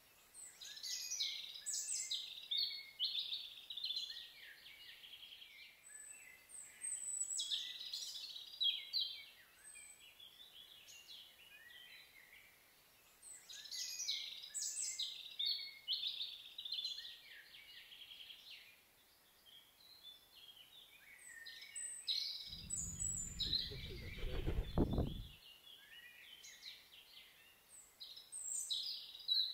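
Small songbirds singing in short chirping phrases that come and go every few seconds. A brief low rumble passes about three-quarters of the way through.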